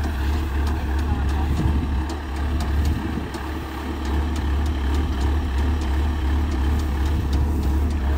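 Diesel engine of a rice combine harvester running steadily, a deep, even drone.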